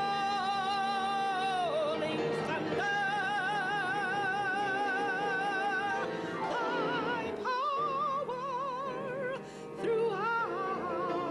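A solo voice singing long, high held notes with a wide vibrato, in an operatic style, over instrumental accompaniment.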